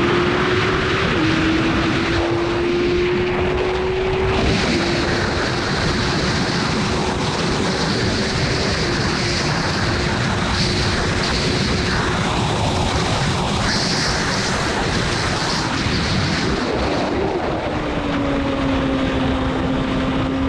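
Formula Gloria's 1000 cc Yamaha motorcycle engine at high revs on track, with a high, steady engine note and heavy wind rush. The note steps down slightly about one second in and again about four seconds in, as with upshifts, and near the end it drops lower and starts to climb again as the car goes through a corner.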